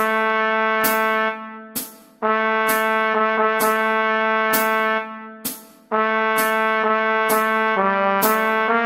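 Trumpet playing a slow melody of held notes, with two short breaks in the phrase. A sharp click marks the beat about once every second.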